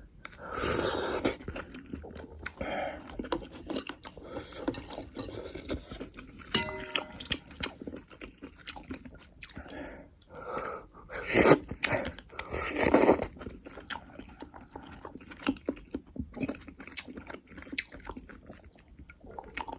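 Close-miked eating sounds: a person chewing and biting beef and sausage stew, with irregular wet mouth noises and a few louder bursts about 11 and 13 seconds in.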